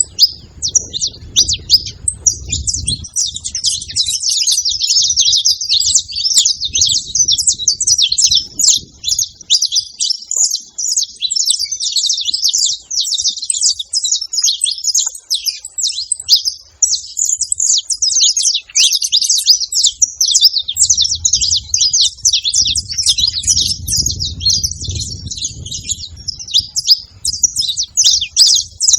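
Several saffron finches chirping and singing at once: a dense, unbroken stream of quick high chirps and trills.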